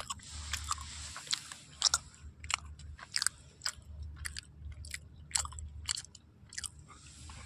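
Close-up eating of fire-toasted bread and macaroni: chewing and biting with irregular crisp crunches and clicks.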